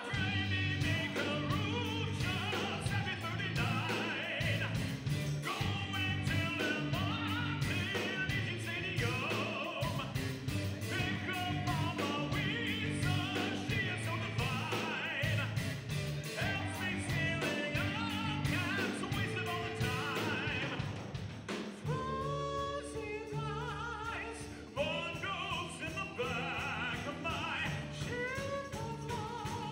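Live rock band playing: electric guitars, electric bass, drum kit and keyboard, with a man singing into a microphone. The band thins out for a few seconds past the middle and then comes back in full.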